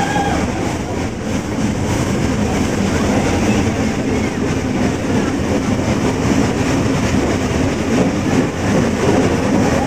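Nilgiri Mountain Railway train running, heard from on board: the steady rumble and noise of the carriage and its wheels on the track.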